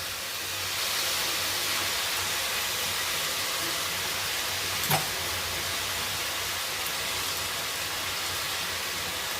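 Cooked basmati rice sizzling steadily in a pan of hot oil and melted sugar, with a single light knock about halfway through.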